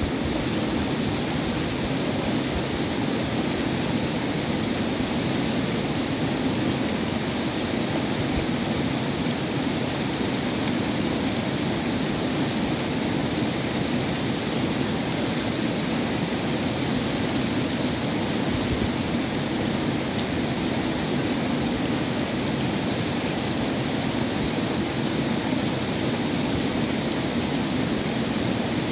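A river rushing over and around boulders in shallow rapids: a steady, unbroken rush of water.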